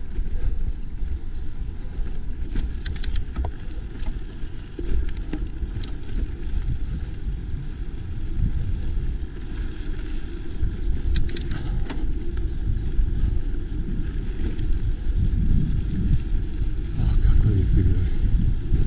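Mountain bike rolling over a dirt road: a steady, uneven low rumble of the tyres and wind on the microphone, with a few sharp clicks and rattles, a cluster of them about eleven seconds in.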